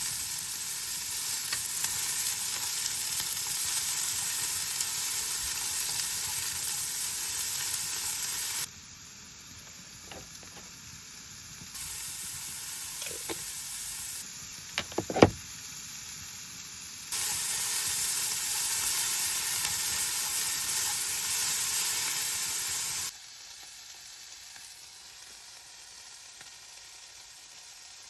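Food sizzling as it fries in a pan, in several cut-together stretches that switch between louder and quieter, with a few light knocks and one sharp clink about halfway through.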